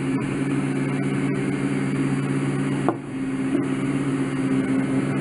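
Steady electric machine hum made of several held low tones, dipping briefly about three seconds in, with a faint tick or two.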